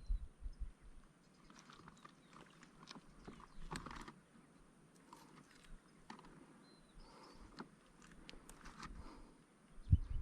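Scattered light knocks, clicks and rustles of handling on a kayak, with low rumbling bumps at the start and again near the end.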